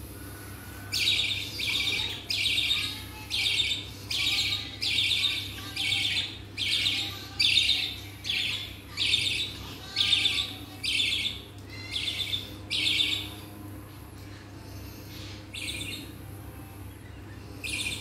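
Budgerigars chirping: a run of short chattering chirp bouts, about one a second, that thins out to a few scattered chirps after about thirteen seconds.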